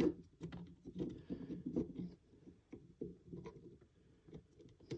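Hands handling and fitting plastic kit parts: irregular light clicks and rubbing.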